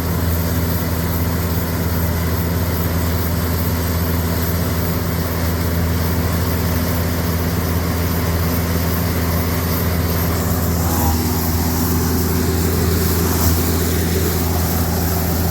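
Forage harvester's diesel engine running steadily at a constant speed, with a slight change in its sound about ten seconds in.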